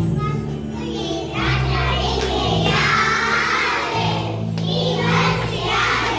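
Song playing with children's voices singing over a steady bass line that changes note every second or two.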